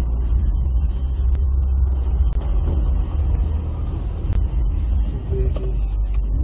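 Steady low rumble of a car's engine and road noise heard inside the cabin as it moves slowly in traffic, with a few faint clicks.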